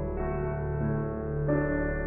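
Background music: soft ambient piano and keyboard chords over a steady low bass, the chord changing about every second.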